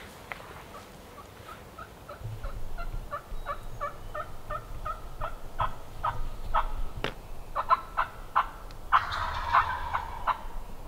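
Wild turkey yelping: a long run of evenly spaced yelps, about three a second and quickening toward the end, then a louder gobble about nine seconds in.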